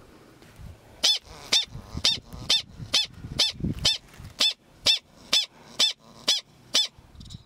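Gunnison's prairie dog barking: a steady series of short, sharp, high-pitched barks at about two a second, starting about a second in.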